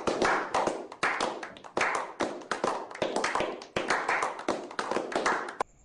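A small group of people clapping their hands, in regular loud swells about every half second, stopping abruptly near the end.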